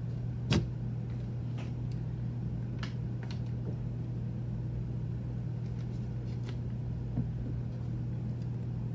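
Steady low hum of room noise with no speech, broken by a few faint, short clicks; the sharpest comes about half a second in.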